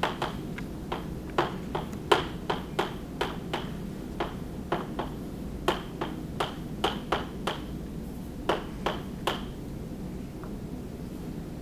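Chalk tapping and clicking on a blackboard as letters are written, in irregular clusters of sharp taps, a few a second, with a steady low room hum beneath. The taps thin out near the end.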